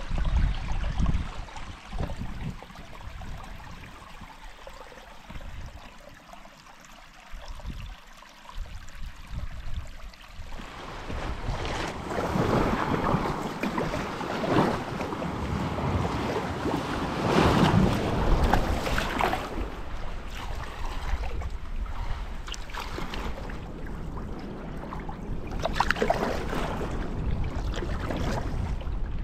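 A small stream trickling over stones. About ten seconds in it gives way to louder water splashing and lapping around a sea kayak's hull as it is paddled, in surges every second or two, with wind on the microphone.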